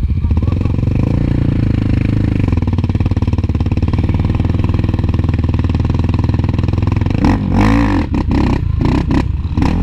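ATV (quad) engine running hard and steadily, with its pitch dipping and rising again about three-quarters of the way in. Rough, choppy noise breaks over it near the end.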